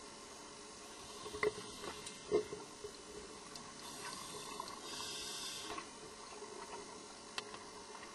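Underwater sound of a scuba diver on a regulator. A few soft knocks and bubble pops come early, then a hiss of breathing gas lasting about two seconds, from about four seconds in.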